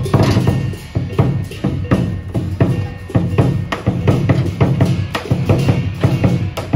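Lion dance percussion: a large Chinese lion dance drum beaten in a fast, steady rhythm, with cymbals clashing along.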